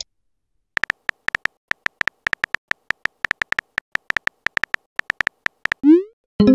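Keyboard tap sound effects of a texting-story app: short, high, clicky beeps at an uneven pace of about six a second as a message is typed. Near the end comes a rising swoop as the message is sent, with a chime starting right at the end.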